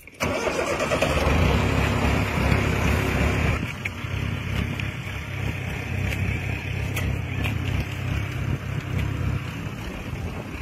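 Farm tractor engine starting up suddenly and running hard for a few seconds, then settling to a steadier, quieter run.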